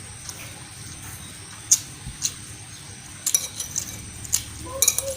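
Close-up eating sounds: scattered sharp clicks and smacks, a few of them in quick succession a little past the middle and again near the end.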